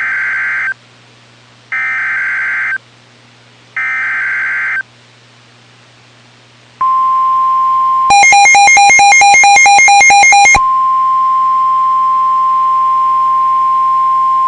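Emergency Alert System SAME header: three short screeching digital data bursts, then, after a pause, the steady NOAA Weather Radio 1050 Hz alert tone signalling an incoming warning. For a couple of seconds a louder, rapidly pulsing electronic beeping plays over the tone.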